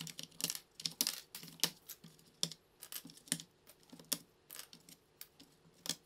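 Keycaps being pulled off an IBM Model M buckling-spring keyboard with a wire keycap puller: an irregular run of sharp plastic clicks and snaps, several a second.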